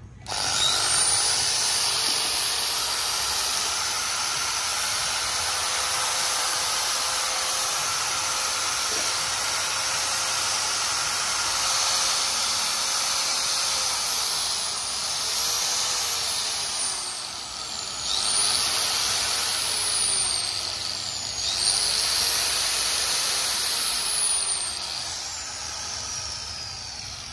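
Hitachi 100 V, 720 W angle grinder switched on, its high whine climbing quickly to full speed and then holding steady. From about halfway it is let off and re-triggered three times, the whine falling and climbing back each time, before a final spin-down near the end.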